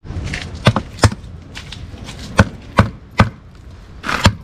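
A knife being driven through a kyphosus fish on a wooden cutting board, its spine struck with a block of wood as a mallet: a series of sharp, irregularly spaced knocks.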